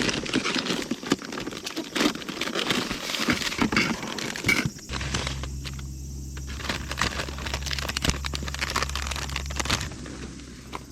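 Crinkling and rustling of packaging being handled, with many small clicks. A steady low hum joins about halfway through and stops near the end.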